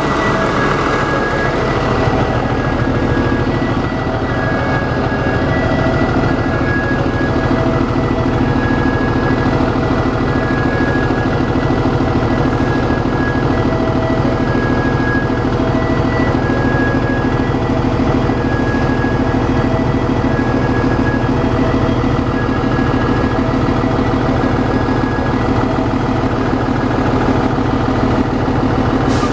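Orion VII hybrid transit bus with a Cummins ISB diesel running steadily. Over it a high-pitched belt squeal chirps on and off, about once every second or two.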